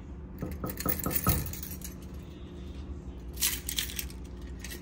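Small hard objects clinking and rattling in two short clusters, the first about a second long near the start and a briefer one near the end, over a steady low hum.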